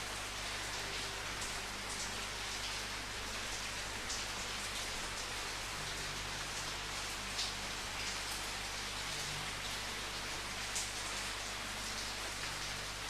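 Steady rain falling, with individual drops ticking through it; two louder drops stand out about seven and eleven seconds in.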